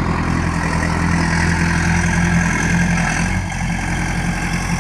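Engine idling steadily; one steady hum in it drops away about three seconds in.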